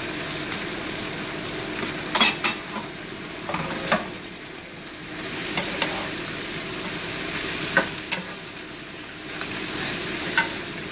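Diced taro stems frying in oil in a pan with a steady sizzle, stirred and tossed with a wooden spatula that knocks against the pan now and then.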